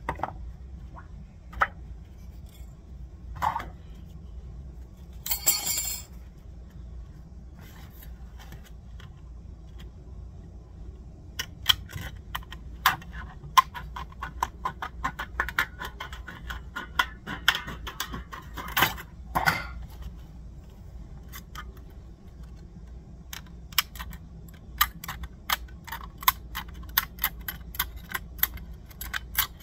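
Thin metal shim stock being handled and cut: scattered light metallic clicks and clinks, a brief scraping rasp about five seconds in, and a busier run of clicks and clinks through the second half.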